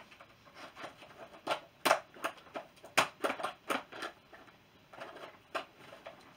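Scissors working at plastic zip ties that hold a toy figure in its packaging: a run of irregular sharp clicks and snips.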